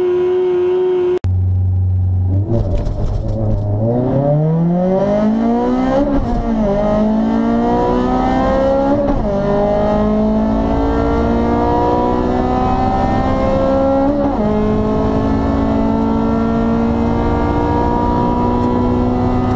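A 2000 Integra Type R's 1.8-litre VTEC four-cylinder at full throttle on a quarter-mile drag run, heard from inside the cabin. It holds a steady high pitch at first, breaks off sharply about a second in, then climbs in pitch through the gears. The upshifts come about 6, 9 and 14 seconds in, each a short dip before the climb starts again, and the pitch falls away right at the end.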